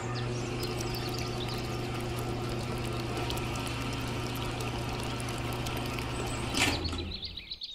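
Small yellow DC gear motor of a miniature toy concrete mixer running with a steady hum as it turns the drum, switched on at the start and cut off with a click of the rocker switch about six and a half seconds in.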